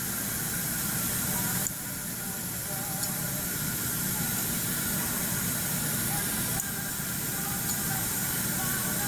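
Steady hiss with a low hum beneath it, dipping slightly and suddenly about two seconds in and again near seven seconds.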